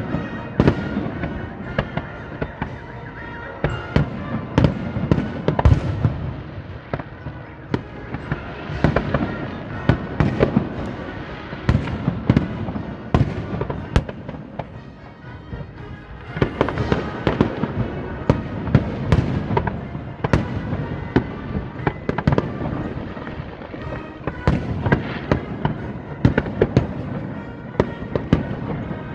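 Fireworks display: a dense run of irregular bangs and crackling bursts, easing off briefly about halfway through before picking up again.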